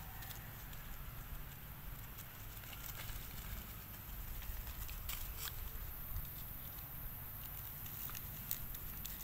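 Dry leaf litter crackling and rustling in scattered light clicks as young macaques scuffle and wrestle on it, over a low steady rumble.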